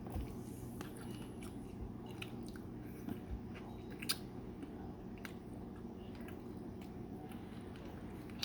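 A person chewing balut, a boiled fertilised duck egg, close to the microphone: soft wet mouth clicks and smacks scattered through, the sharpest about four seconds in, over a steady low hum.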